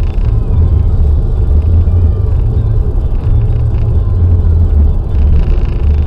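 Car driving at motorway speed: a loud, steady low rumble of road and engine noise.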